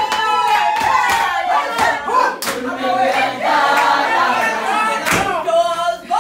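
A group of women singing together unaccompanied, with a few sharp handclaps scattered through the song.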